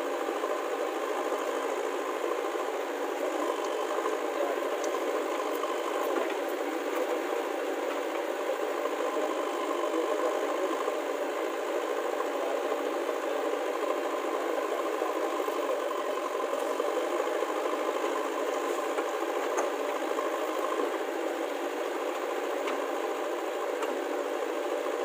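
Diesel engine of a JCB 3DX backhoe loader running steadily under load as it works its digging arm, a continuous clattering engine noise with no let-up.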